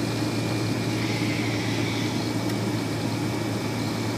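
Steady flight-deck noise of a Fokker 100 twin-jet airliner on final approach: rushing airflow over a constant low drone, with a thin steady high whine.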